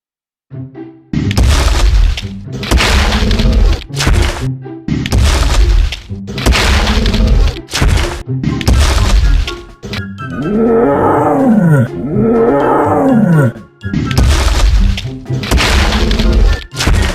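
Dramatic sound-effect soundtrack: heavy crashing, rumbling noise blasts, and about two-thirds of the way through a few monster-style dinosaur roars that rise and fall in pitch, over music.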